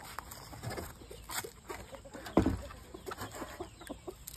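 Backyard chickens clucking now and then, over soft footsteps through grass. One short cluck a little past halfway stands out as the loudest sound.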